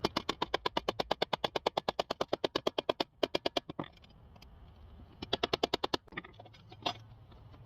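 A rapid, even run of sharp clicks, about nine a second, for nearly four seconds, then after a pause a shorter burst of the same clicking and one last single click.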